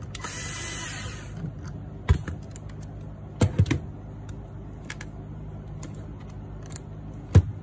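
Small hand-work noises on an ASI BAC motor controller and its mounting bracket just after its hex bolts are loosened: a scraping hiss in the first second and a half, then a few separate sharp clicks and knocks of metal parts being handled, the loudest near the end.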